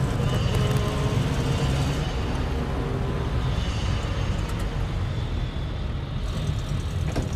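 Road traffic: vehicle engines and tyre noise as a steady low rumble, with a bus driving past.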